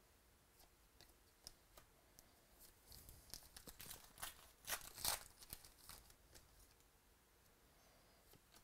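Plastic trading-card packaging being torn open and crinkled. Scattered faint crackles give way to a denser run of crinkling from about three to six seconds in, loudest around five seconds.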